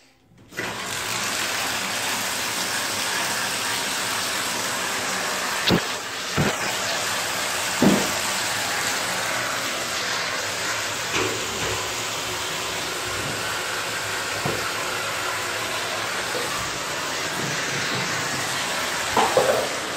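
Water running steadily from a bath tap, filling the tub; the rush starts suddenly about half a second in. A few short knocks come through it around six to eight seconds in.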